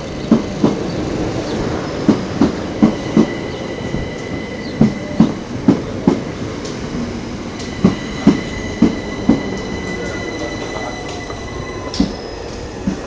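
Passenger train pulling into a station, its wheels knocking over rail joints in quick pairs that come further apart as it slows. A steady high-pitched squeal from the wheels rides over the rumble.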